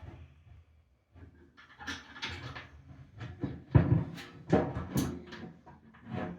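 A dog panting close by in quick, uneven breaths.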